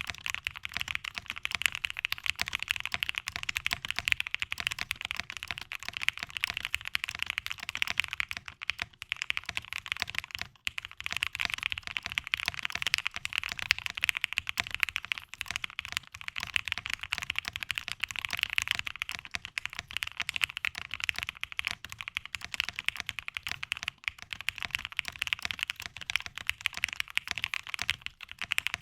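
Continuous typing on a Tyche75 custom mechanical keyboard with lubed and foamed Gateron Mini switches on a polycarbonate plate: a dense, fast stream of keystrokes, with a brief let-up about ten seconds in.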